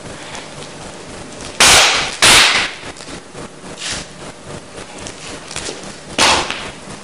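Loud, sharp hand claps ringing briefly in a hall: two in quick succession, then a fainter knock, and a third clap about four seconds later.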